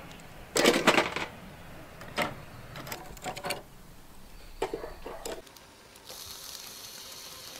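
Oyster shells clattering and clicking against a metal wire grill rack as they are set down with metal tongs: a quick cluster of loud clicks about half a second in, then scattered clicks. Near the end a steady high sizzle sets in from the grill.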